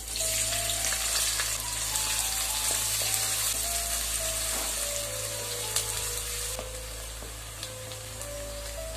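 Sliced onions sizzling in hot oil with cumin seeds in a steel pot, loud as they hit the oil and easing off after about six and a half seconds. A wooden spatula stirs them, with a few scrapes and taps against the pot.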